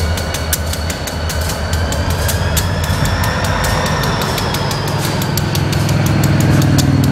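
Pan Am Railways diesel locomotives running along the track. Their engines drone steadily under a quick run of wheel clicks and a thin high squeal that rises and falls. The engine sound swells louder near the end.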